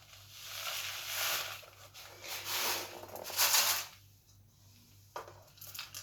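Bird seed being shaken back and forth in a tin foil tray: a rustling rattle that swells and fades with each tilt, about once a second, and stops about four seconds in.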